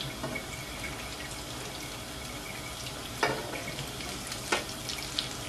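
Bread balls deep-frying in a pan of oil: a steady bubbling sizzle, with two light clicks of a fork against the pan as the balls are turned, one a little after three seconds and one about four and a half seconds in.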